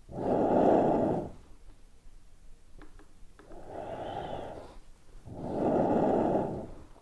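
Air rushing through the bellows of a button accordion with no notes sounding, in three swells about two seconds apart, the middle one quieter.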